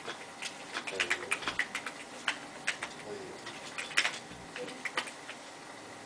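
Typing on an Amiga computer keyboard: irregular clicking keystrokes in quick runs with short pauses, as a sentence is entered for the speech synthesizer to read aloud.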